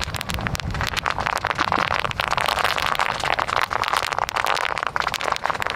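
Bubble wrap, laid several layers thick, popping under a pickup truck's tire as it rolls slowly over it: a rapid, continuous crackle of many small pops.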